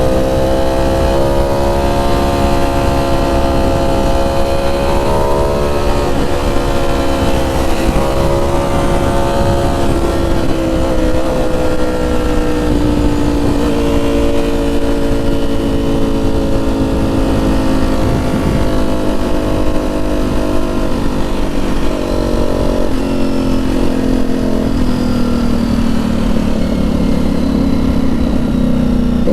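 Ducati Streetfighter V4S's V4 engine through an SC Project titanium 2-1-2 exhaust, running under way at a fairly steady engine speed. Its pitch falls slowly through the second half as the revs drop.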